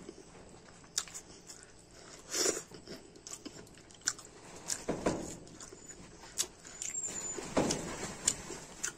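A person eating rice and curry by hand: chewing and wet mouth smacks, with scattered short clicks and a few louder squelchy smacks about a third, halfway and three-quarters of the way through.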